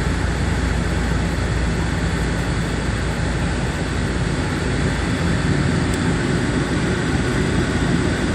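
Cabin noise of a Bombardier Dash 8 Q400 in flight: its Pratt & Whitney PW150A turboprop engines and propellers running, a loud, steady drone with a low rumble and a few held tones, heard from inside the passenger cabin.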